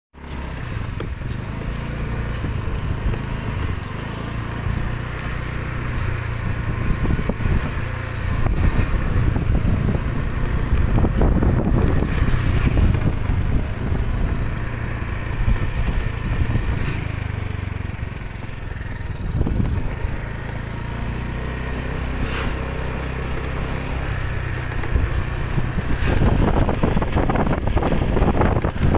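Motorcycle engine running steadily while the bike is ridden along, with a low hum.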